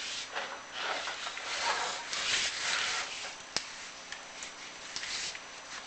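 Chimney inspection camera and its cable rubbing and scraping down a clay-tile flue liner, in irregular swells. There is one sharp click about three and a half seconds in.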